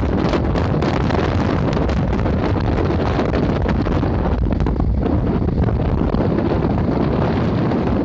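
Wind buffeting the microphone in a steady low rumble, over the wash of sea waves breaking on shoreline rocks.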